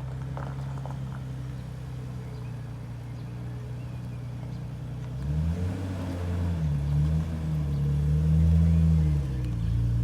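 Nissan Skyline R32 GT-R's RB26 twin-turbo straight-six idling steadily, then revved from about halfway through, its pitch rising and falling several times.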